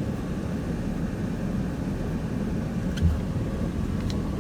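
A 2001 Dodge Ram pickup's 5.9 V8 running and road noise as the truck is driven: a steady low rumble, with a single brief thump about three seconds in.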